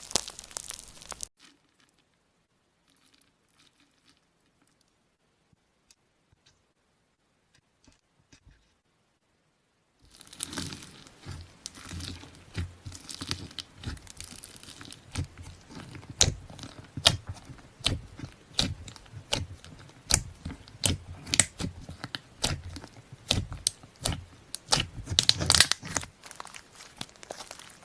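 Slime being squeezed and kneaded by hand, giving dense sharp crackles and pops. The sound stops briefly, leaving several seconds of near silence, and starts again about ten seconds in.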